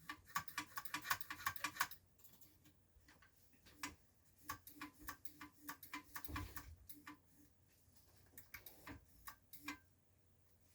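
Small mechanical clicking from hands working the parts of an opened floppy disk drive mechanism: a quick run of clicks for about two seconds, then slower single clicks about twice a second.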